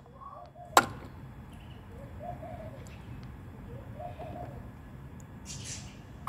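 A dove cooing faintly in the background, short low coos about every two seconds, with a sharp click about a second in and a brief hiss near the end.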